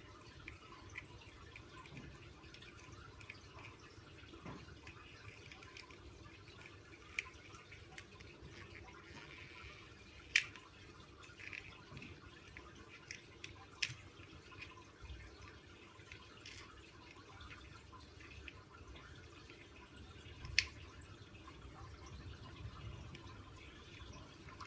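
Faint, scattered small clicks and taps of hands working with double-sided tape and small RC car parts, with three sharper clicks about ten, fourteen and twenty seconds in.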